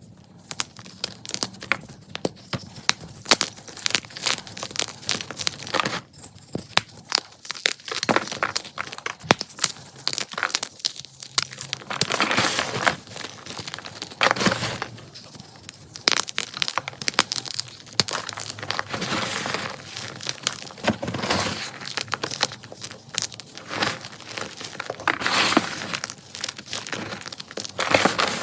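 Ader gym chalk being crushed: a dense run of dry crackles and snaps, with several louder spells of crunching.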